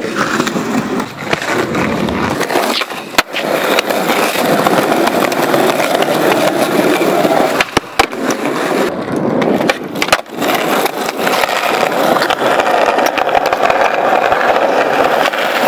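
Skateboard wheels rolling over concrete paving slabs, a steady loud rumble, with a few sharp knocks about three, eight and ten seconds in.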